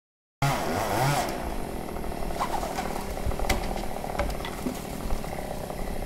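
Chainsaw running, starting abruptly about half a second in, its pitch falling off during the first second and then running steadily. A sharp click about three and a half seconds in.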